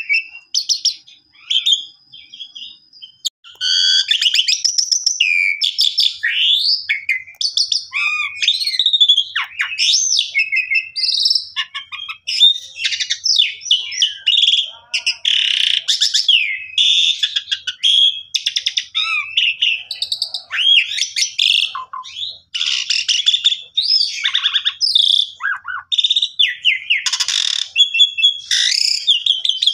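Asian pied starling singing in full song: a long, varied run of whistles, slurred glides and harsh chattering notes. It is sparse for the first few seconds, then continuous.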